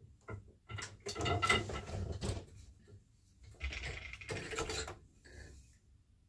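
An 8-shaft loom being worked: a few short wooden clicks, then two longer rattling, clattering passages as the beater, shafts and boat shuttle are handled and the shuttle is passed through the shed.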